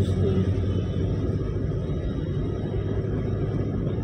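Steady low rumble of a moving vehicle's engine and road noise, heard from inside the vehicle.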